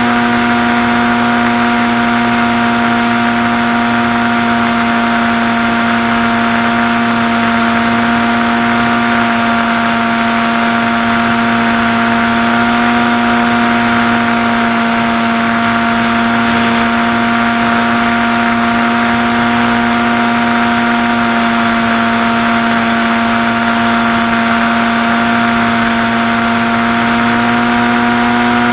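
Skywalker RC plane's electric motor and propeller running at a steady, unchanging pitch, a constant whine with a steady hiss beneath it.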